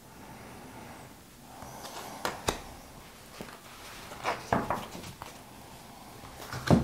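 Oracle cards being swept up from a fan and handled on a cloth-covered table: faint rustling with a few light card clicks, and a louder thump near the end.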